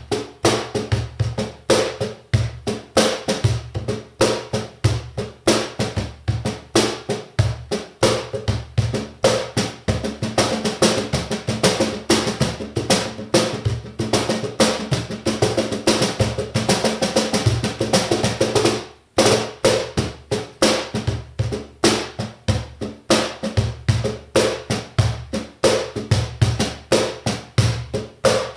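Spanish-made Duende Pro cajón played by hand in quick, continuous rhythmic strokes, mixing deep bass tones with sharp slaps. It has a bell fitted inside, and its snare wires are held down with paper tape. Playing stops briefly about nineteen seconds in, then picks up again.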